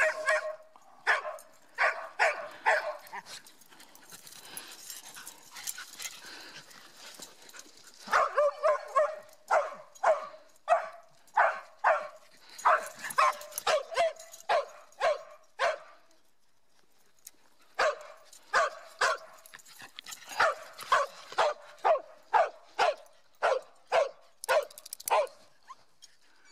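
A dog barking in quick runs of short barks, about two a second, with pauses of a few seconds between the runs.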